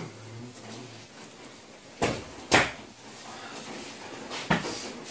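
Sharp clicks and knocks of a hand tool and parts against a car door's bare inner frame. There are two clicks about half a second apart around two seconds in, and another near the end.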